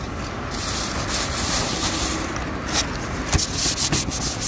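Gloved hands rubbing and smoothing kitchen paper towels flat over a milk-carton board: a dry, scratchy paper rustle that starts about half a second in, with a few sharper scrapes near the middle.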